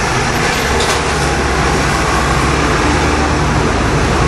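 The Gastown Steam Clock's steam whistles sounding its hourly chime, with steam hissing, over a steady low hum of idling traffic.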